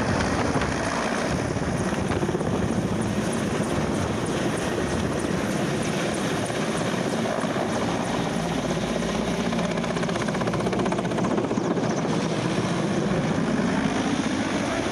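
Large military transport helicopter flying low overhead, its rotor and engines making a steady, continuous noise.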